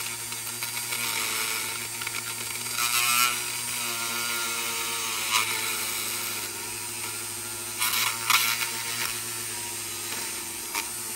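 Small hand-held rotary tool running steadily at high speed, its bit pressed against the back of a plastic model car body to heat and melt through it. Brief louder grinding spells about three seconds in and again about eight seconds in as the bit bites into the plastic.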